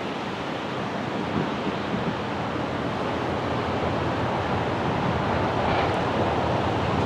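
Steady rushing noise of wind buffeting the microphone over the wash of water along a passing container ship's hull, slowly getting louder.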